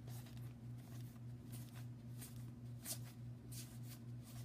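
Baseball cards being flipped through in a stack, faint irregular swishes of card sliding over card, over a steady low electrical hum.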